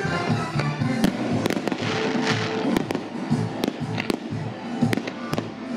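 Fireworks display going off: aerial shells bursting in a quick irregular string of sharp bangs, about a dozen over a few seconds, with music playing underneath.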